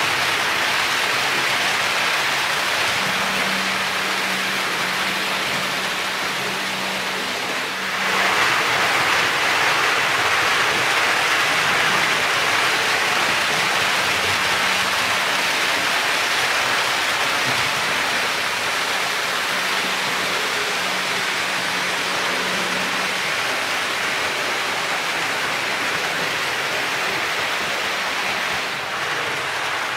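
Märklin HO model trains running on the track: a steady rushing rattle of metal wheels on rails, with a low hum, growing a little louder about eight seconds in.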